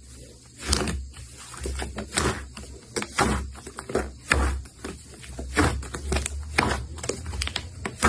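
Hands squishing and pressing slime: an irregular run of sticky clicks and pops with soft low thuds.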